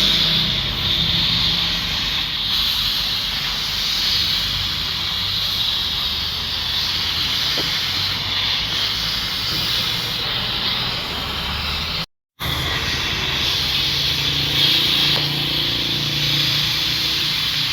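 Arc welding on an excavator bucket, a steady crackling hiss with a low machine hum beneath. The sound cuts out for a moment about twelve seconds in.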